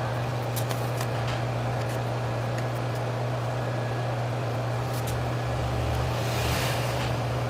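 Steady low electrical hum with an even, fan-like rushing noise, and a few faint light clicks.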